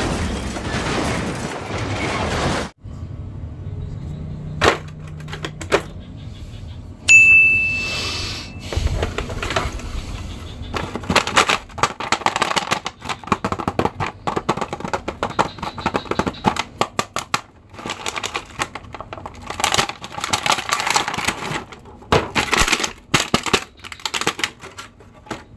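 Plastic packaging crackling and rustling in quick clicks as a boxed Superman action figure is opened and pulled from its clear plastic bag. Before that there is a short burst of film sound effects, and about seven seconds in a single sharp hit with a ringing ding.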